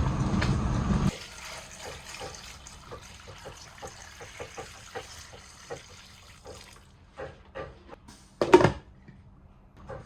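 Water running steadily, shut off abruptly about a second in, followed by a string of small taps and clinks and one louder clatter near the end.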